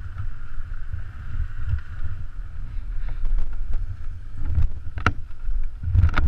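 Wind buffeting the microphone in gusts, over a steady faint hum, with scattered clicks and knocks; the sharpest knocks come about five seconds in and near the end.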